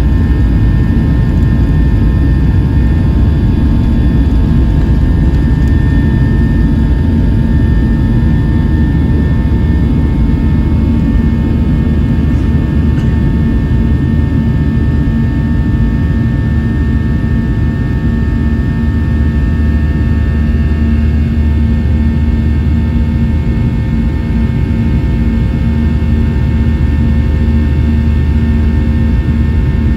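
Boeing 737 jet engines at takeoff thrust, heard from inside the cabin: a loud, steady rush of engine noise with several steady whining tones as the airliner races down the runway, lifts off and climbs. A deep hum grows stronger about two-thirds of the way through.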